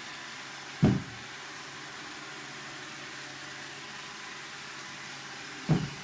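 Roomba robot vacuum running with a steady whir and hiss, with two short dull thumps, one about a second in and one near the end.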